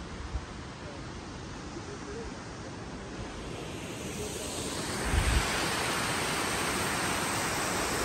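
Rushing water of a mountain stream and small waterfall, a steady hiss that grows louder about halfway through, with a few low wind knocks on the microphone.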